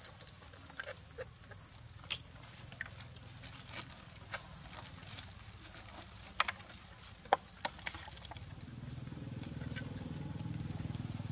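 Young macaques feeding from a metal bowl: scattered sharp clicks and taps of food and the bowl. A short high chirp recurs about every three seconds, and a low steady hum comes up from about nine seconds in.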